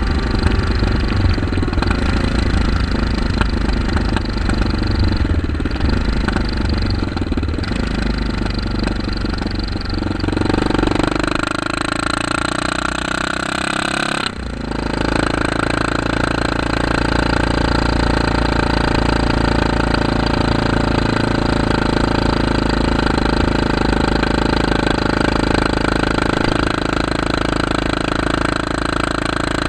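Kawasaki KLR650's single-cylinder engine running through an aftermarket CZR slip-on muffler, louder and beefier than stock, like a dirt bike. The note shifts in pitch around 11 seconds in, breaks off abruptly about 14 seconds in, then runs on steadily.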